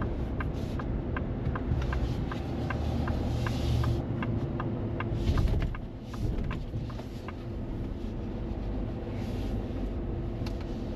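Ford F-350 pickup heard from inside the cab: steady road and engine rumble as the truck slows. A turn signal ticks about two and a half times a second and stops about six seconds in.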